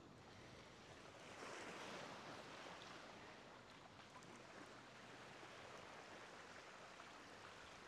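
Faint ocean surf: a soft, even wash of waves that swells about a second and a half in, then slowly ebbs.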